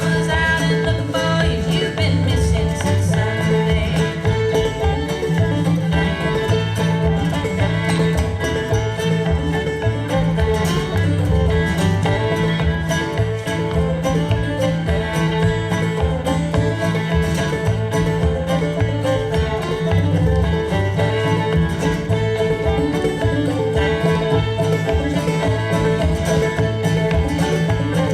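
Upbeat bluegrass music with banjo and guitar, a steady beat and possibly a singing voice.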